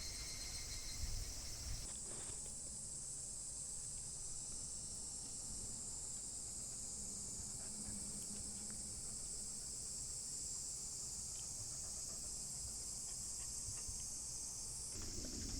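Steady, high-pitched chorus of insects chirring, changing abruptly about two seconds in.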